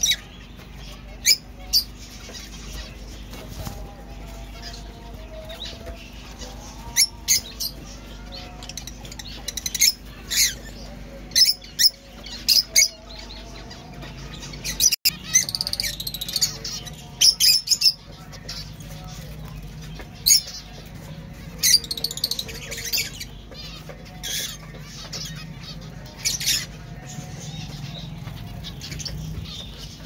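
Caged lovebirds giving short, sharp, shrill calls in scattered bursts, then, after a cut about halfway through, a group of zebra finches calling and chattering more densely.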